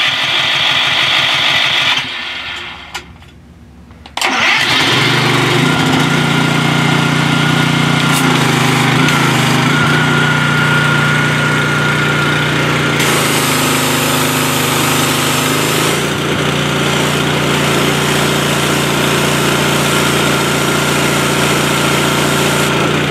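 Gas pressure washer's small engine starting on its first start: it runs for a couple of seconds, drops away, then catches about four seconds in and runs steadily. Its note shifts a few times while the wand's spray hisses.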